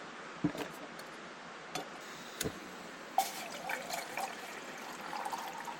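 A few light knocks of handling, then from about three seconds in water pouring and gurgling out of a bottle into a pot to be boiled for coffee.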